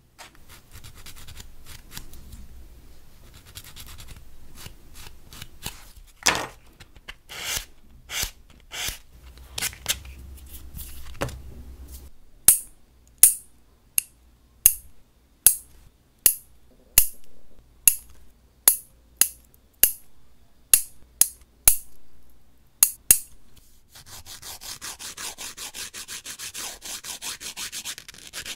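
Metal nail clipper cutting fingernails short: a series of about seventeen sharp clicks, roughly one every half-second to second, starting about twelve seconds in. Near the end a wooden nail file rasps back and forth on the cut nail tips in quick strokes. Before the clipping there are only scattered soft taps and scratches of handling.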